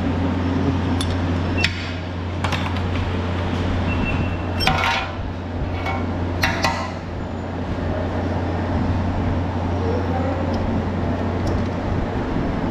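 Wrench and drain bolt clinking now and then as the oil drain bolt is worked loose on a KTM motorcycle's engine, the first step of an oil change. A steady low workshop hum runs underneath.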